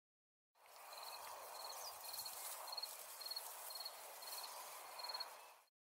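Outdoor field ambience: an insect chirping, a short high pulsed chirp about twice a second, over a soft steady hiss. The sound cuts in abruptly about half a second in and cuts off just before the end.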